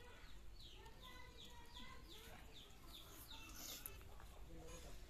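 Faint, repeated high chirps of birds, each falling in pitch, about three a second, that stop a little past halfway, with a few weaker lower calls under them.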